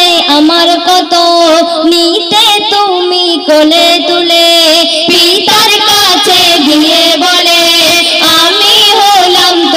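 Two girls singing a Bengali Islamic gazal together into handheld microphones, amplified through a stage sound system; a continuous, ornamented melody with long held notes.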